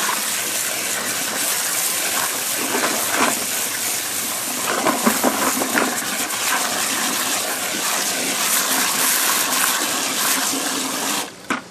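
Water from a garden hose spray nozzle gushing into a partly filled plastic 5-gallon bucket, a steady splashing fill that cuts off suddenly near the end.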